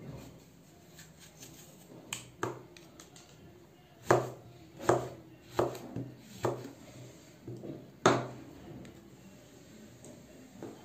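Kitchen knife slicing an apple on a plastic cutting board: a series of separate sharp knocks as the blade meets the board, about seven in all, the loudest about four seconds in and again about eight seconds in.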